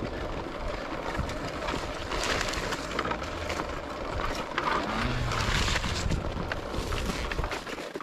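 Enduro motorcycle freewheeling downhill with its engine shut off because its cooling fan isn't working: tyres rolling and rattling over the rough track, with bushes brushing and scraping along the bike.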